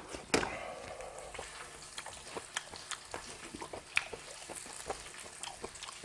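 Grilled beef intestines and tripe sizzling in a hot metal tray, a steady hiss with frequent crackles and pops of fat. Chopsticks click against the tray as the food is stirred and picked up.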